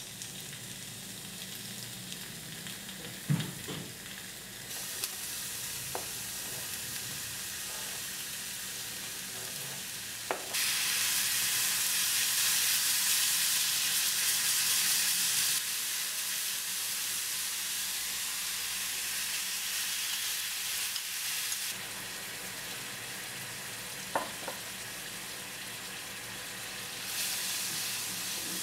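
Pork slices and mushrooms frying in hot oil in a nonstick pan, a steady sizzle that steps up louder about ten seconds in and drops back a few seconds later. A wooden spatula stirs the food, with a few sharp knocks.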